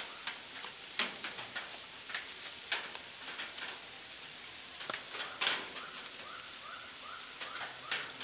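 Outdoor evening ambience: a steady high hiss with scattered sharp clicks and crackles, and near the end a run of about six short rising chirps.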